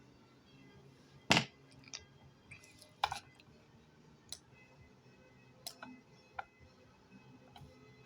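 A handful of separate sharp clicks, the loudest a little over a second in and another about three seconds in, over a faint low hum.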